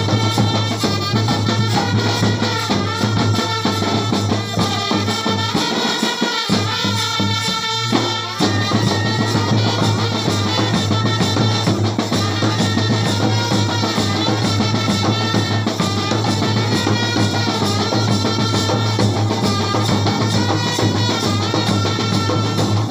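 Kerala street band set playing a tune with drums and a bass drum keeping a steady beat under a melody line; the bass drops out briefly about six seconds in.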